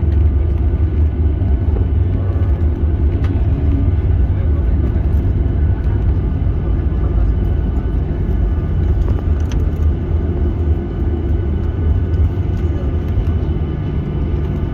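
Boeing 737-800 cabin noise: a steady, loud low rumble from the engines and airflow, with a few steady tones over it and a couple of faint clicks.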